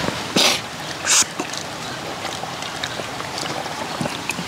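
Close mouth sounds of people eating: two short, sharp hissing sounds within the first second and a half, then soft chewing with small scattered clicks.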